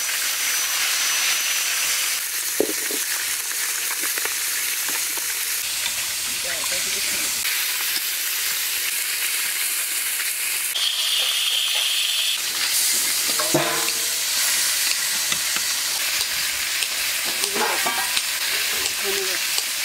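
Bata fish curry sizzling in a pan on the fire: a steady hiss with scattered small clicks.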